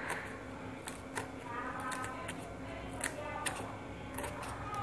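Kitchen scissors snipping a fresh red chili pepper into a bowl: a run of short, crisp snips at irregular intervals.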